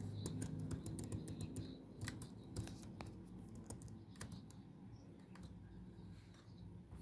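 Light clicks and taps from handling small objects at a desk: a quick run of them in the first four seconds, then sparser, over a steady low hum.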